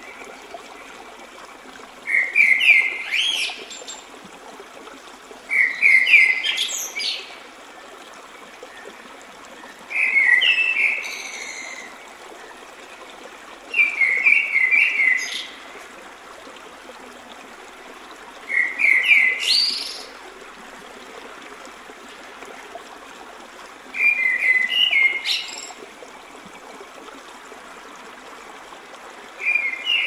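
A songbird sings the same short phrase over and over, about every four seconds: a few quick notes climbing into a higher flourish. Under it runs the steady rush of a forest stream over rocks.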